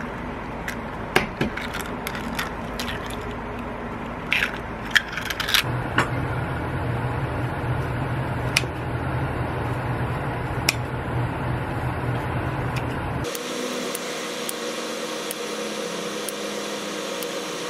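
Eggs cracked open into a ceramic bowl: a run of sharp taps and shell cracks. Then kitchen scissors snip through sheets of fish cake (eomuk), a few scattered snips over a steady low hum.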